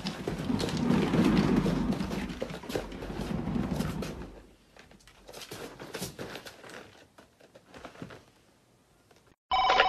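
Cat exercise wheel turning under a running cat, with a steady rolling rumble for about four seconds, then a few scattered light knocks and paw taps as it slows.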